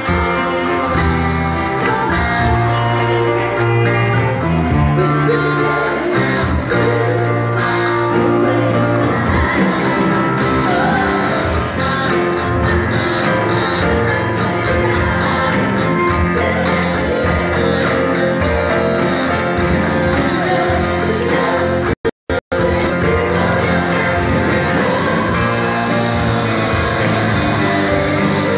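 Live pop band playing, with three women singing into microphones over electric guitar, bass, keyboard and drums. The sound cuts out twice for a split second about two-thirds of the way through.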